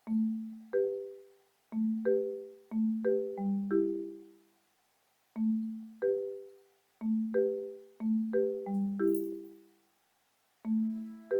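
Background music: a light mallet-percussion melody, marimba-like, played in short phrases of struck, decaying notes with brief pauses between them.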